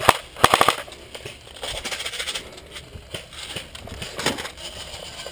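A short rapid burst of airsoft gunfire, about six shots in half a second, followed by scattered clicks and rattles, with a sharp click about four seconds in.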